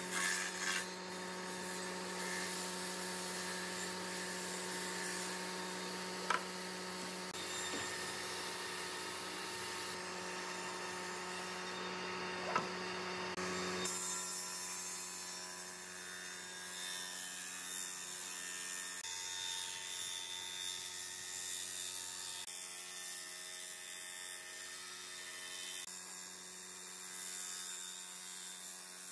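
Electric woodworking machine running with a steady motor hum and the hiss of wood being cut: first a jointer planing a board, then, after a change about halfway, a circular table saw ripping a pine plank lengthwise.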